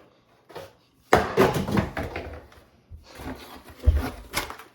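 Clattering and knocking of hard objects being handled and struck, starting suddenly about a second in, with a few sharp knocks near the end.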